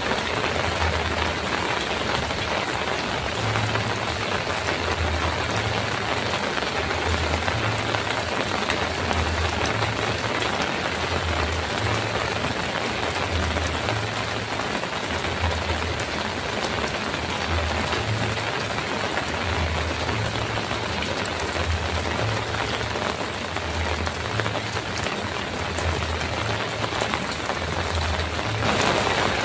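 Heavy rain drumming steadily on a metal roof, an even dense hiss, with a low pulsing hum underneath that repeats about every second and a half.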